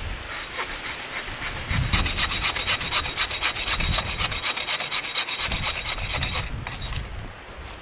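Rapid, evenly spaced rasping strokes of a hand tool cutting or scraping wood, a few strokes a second. They start about half a second in and stop about six and a half seconds in.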